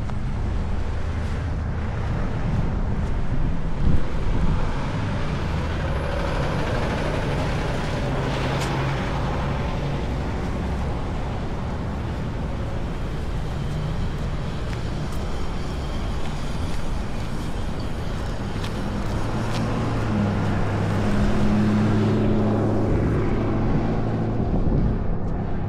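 Road traffic: motor vehicles running along the road in a continuous wash of noise, with one passing closer and louder about three-quarters of the way through.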